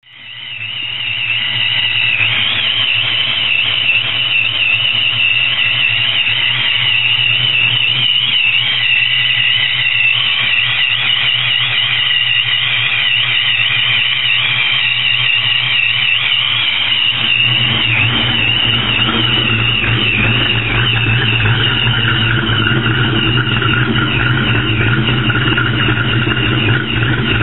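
Supercharged, cammed Ford 5.0 V8 (a '99 Explorer engine with a Lunati cam and a Vortech supercharger at 8 psi) idling steadily, with a high whine that wavers in pitch over the running. The sound fades in within the first second, and the low exhaust rumble grows louder about two-thirds of the way through.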